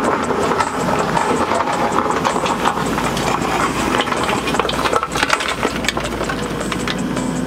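John Deere 135P turbodiesel excavator running at a dig site, with frequent sharp knocks and clatter throughout.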